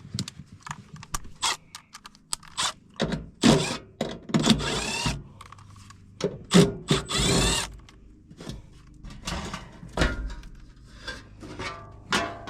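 Hand work on a gas furnace: a string of sharp clicks and knocks, with several longer scraping sounds about three and a half, four and a half and seven seconds in.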